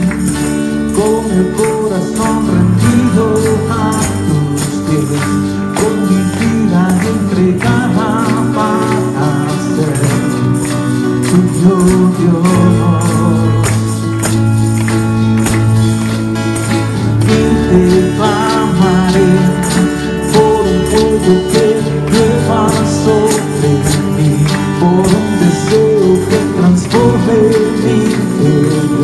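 Live worship music from a band with drum kit and guitar, with singing, and many hand-held tambourines jingling and being struck in time with the beat.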